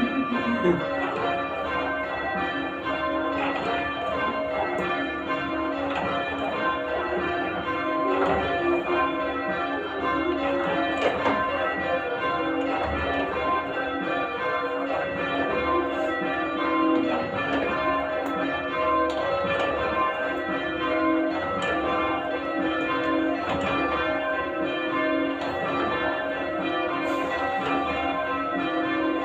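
Church tower bells rung full-circle in English change ringing: a steady, unbroken stream of bell strikes, their ringing tones overlapping.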